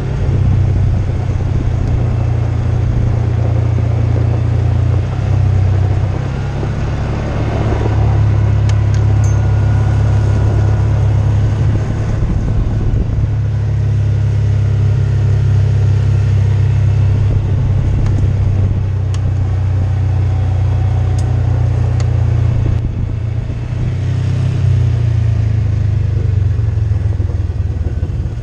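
Side-by-side utility vehicle's engine running while driving at low speed over gravel and dirt: a steady low drone that eases and picks up a few times with the throttle, with a few brief clicks and rattles.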